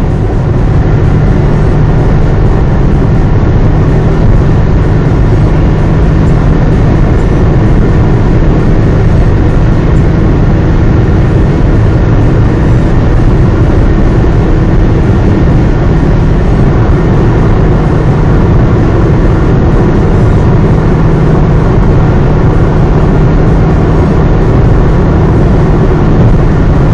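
Steady engine and road rumble of a moving car, with a constant low hum.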